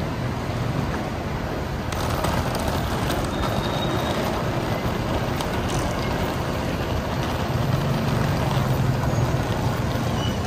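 Steady rolling rumble of suitcase wheels on concrete pavement. A vehicle engine rumbles underneath, growing louder near the end as the parked bus is passed.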